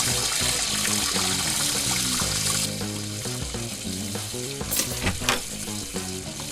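Background music of low held notes changing in steps, under a steady hiss that stops abruptly about a third of the way in; a few short clicks follow.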